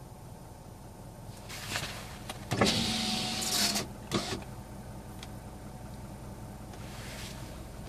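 Nissan March's CR14DE 1.4-litre four-cylinder engine running with a constant knock, which the owner suspects is the timing chain or a connecting rod. About two and a half seconds in, a louder hiss with a steady whine lasts for about a second.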